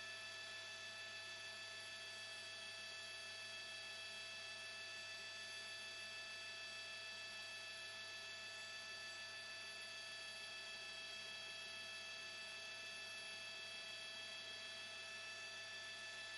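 Faint, steady electrical hum with a thin high whine of several unchanging tones layered over it. No other sound.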